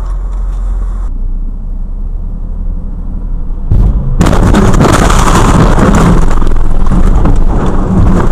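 Dashcam recording of a car crash: low road and engine rumble inside a car, then from about four seconds in a loud, harsh, sustained rush of crash noise.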